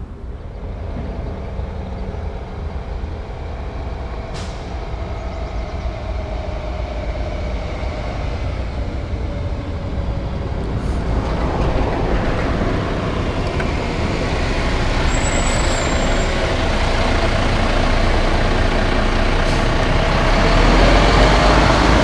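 International WorkStar 5-axle concrete mixer truck's diesel engine approaching, growing steadily louder until it is running close by near the end.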